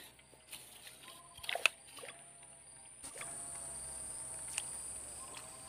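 Steady high-pitched buzz of insects in the waterside vegetation, growing a little louder about three seconds in, over a faint steady hum. A few faint clicks sound in the first two seconds.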